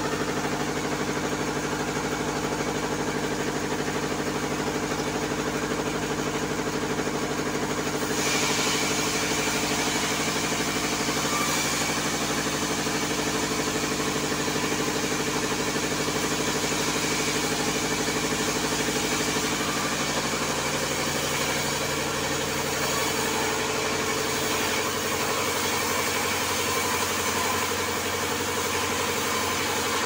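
Sawmill band saw running with a steady machine hum. About eight seconds in, the blade starts cutting through a log and adds a steady hissing cutting noise. Near the two-thirds mark the hum changes pitch.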